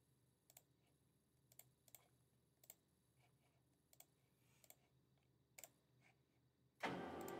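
Faint computer mouse clicks, a dozen or so at irregular intervals, some in quick pairs. Near the end a steady noise comes in.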